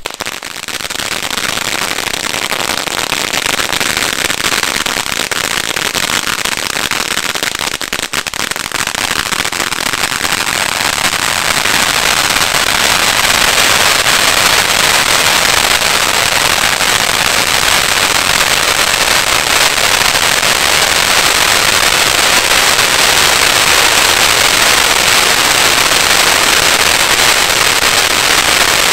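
Ground firework fountain spraying sparks: a dense rushing hiss, shot through with many small pops. It starts on ignition, swells over the first ten seconds or so, then runs steady and loud.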